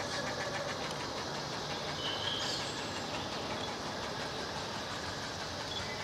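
Axial SCX10 III 1/10-scale RC crawler's electric motor and geared drivetrain running steadily as it crawls over off-road terrain.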